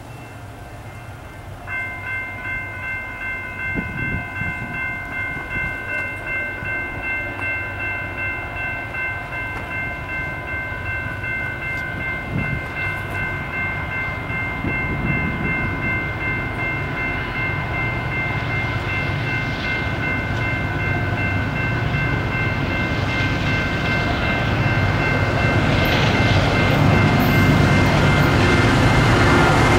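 A grade-crossing warning bell switches on about two seconds in and keeps ringing in an even rhythm, while the rumble of an approaching BNSF diesel freight train grows steadily louder.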